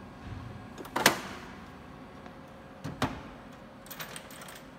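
A plastic bean hopper is set back onto a bean-to-cup coffee machine. There is a sharp knock about a second in, the loudest, another knock about three seconds in, and a few lighter clicks near the end as the catch on top is worked.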